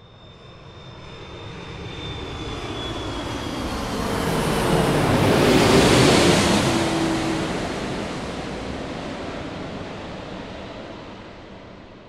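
An airplane flying over: its engine noise grows steadily, is loudest about halfway through as it passes overhead, then fades away. A high whine and a lower tone both drop in pitch as it goes by.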